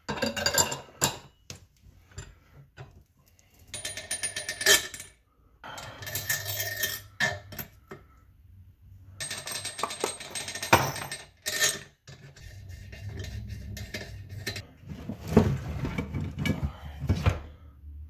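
Small metal hardware clinking and rattling in several short bursts of quick sharp clicks, from handling parts while setting up a manual tire changer on a motorcycle wheel hub.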